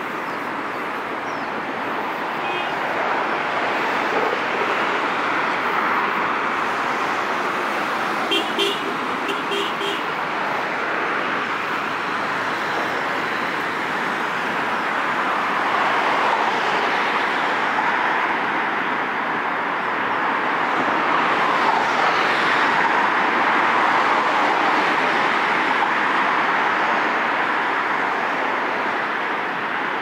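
Steady road traffic noise from passing cars, swelling now and then as vehicles go by, with a quick run of short car-horn toots about eight seconds in.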